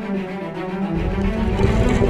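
Background music: dark, low bowed strings holding long notes, joined by a deep low rumble about a second in.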